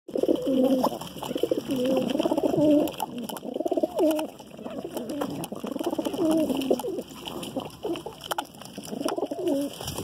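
Domestic pigeons cooing, about five rolling calls that rise and fall in pitch, with light ticks of beaks pecking at scattered grain between them.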